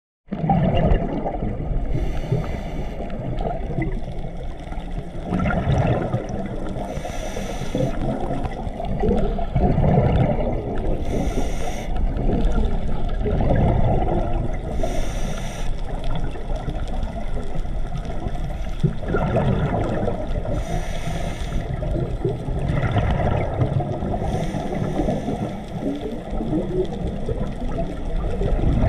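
Underwater ambience picked up through a camera housing on a scuba dive: a steady muffled rumble of water. Over it, the diver's regulator breathing cycles, with a hissing burst of exhaust bubbles about every four to five seconds.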